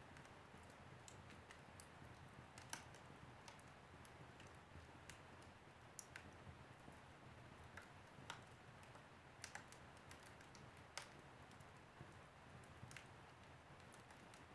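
Wood fire crackling faintly: irregular sharp snaps and pops over a soft steady hiss.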